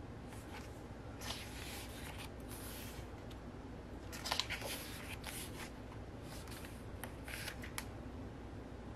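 Glossy pages of a hardcover photobook turned by hand, each turn a short, faint papery swish, several in a row about a second or two apart.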